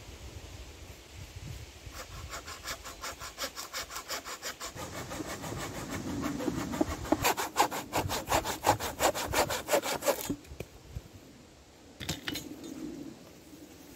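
A hand saw cutting through a branch of acacia wood with rapid, even back-and-forth strokes that grow louder partway through, then stop about ten seconds in. A brief rustle of handling follows.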